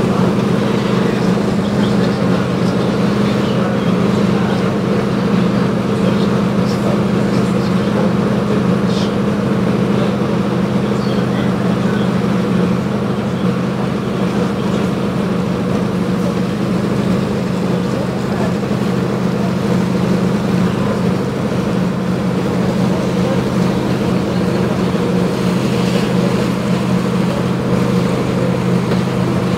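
A cacilheiro river ferry's diesel engines running steadily as the boat gets under way: a constant low, humming drone with no change in pitch.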